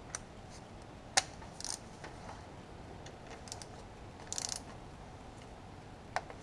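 Hand torque wrench on a socket extension tightening a diesel injector hold-down clamp bolt: short bursts of ratchet clicking and a few sharp metal clicks, the loudest about a second in.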